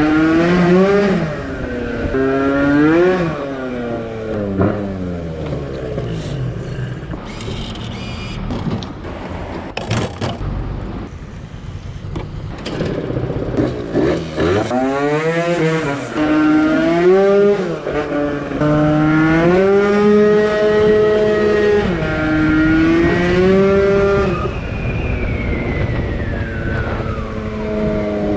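Two-stroke engine of a Piaggio NRG MC2 scooter with a 70cc kit, revving up and down while riding. The note rises and falls several times, holds fairly steady for a few seconds, then falls away near the end.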